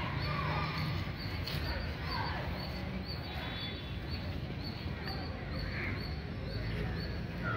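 Open-air background with a steady low rumble and birds calling now and then: short falling calls near the start and about two seconds in, and fainter calls later.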